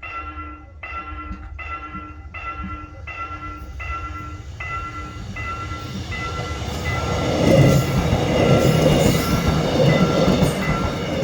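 A warning bell dings steadily, about one and a half strokes a second, and fades out about five seconds in. Then a train's running rumble builds up and becomes the loudest sound.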